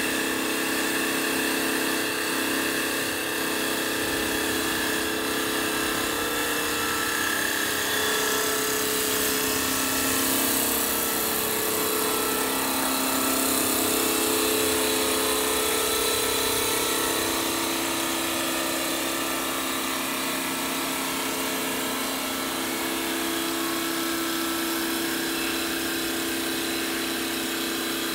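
CNC wood-turning and milling lathe running as it turns a wooden spindle: a steady mechanical drone with several motor tones that step up and down in pitch as the carriages move, and a brighter hiss of cutting through the middle.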